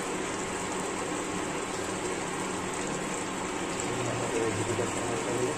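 Maggi noodles boiling hard in a steel pot of water: a steady bubbling hiss.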